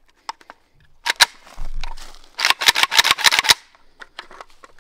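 Sharp metallic clicks and clatter of an AK rifle's magazine being handled at its magazine well and latch, with a quick run of clicks about halfway through. The latch is taken to be gummed up with mud, which is why the magazine came loose.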